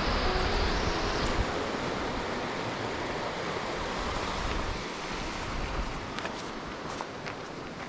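River water rushing, a steady noise that slowly fades over the few seconds, with wind rumbling on the microphone.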